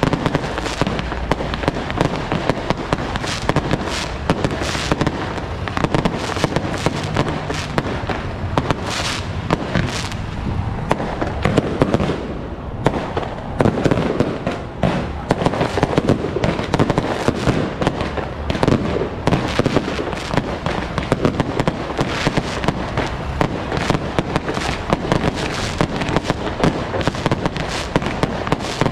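Firecrackers going off in a dense, unbroken crackle of rapid bangs, with louder single cracks scattered through.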